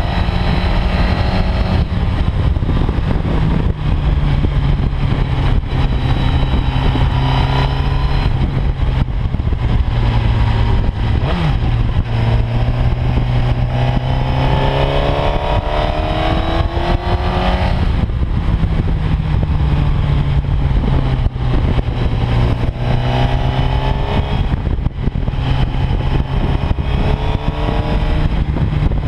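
Sport motorcycle engine under way, its note climbing as it accelerates and dropping back at each shift, most clearly about halfway through and again later, over a steady rush of wind on the microphone.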